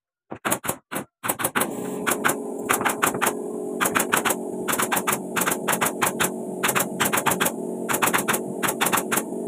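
A nail gun fired in rapid succession: sharp clicks and shots at about three to four a second, over a steady hum that starts about a second in.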